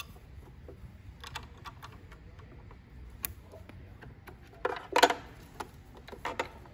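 Scattered clicks and light knocks of plastic and metal parts being handled as the small cover over the needle-plate area of a Brother NX450 sewing machine is worked loose and taken off. The loudest knock comes about five seconds in.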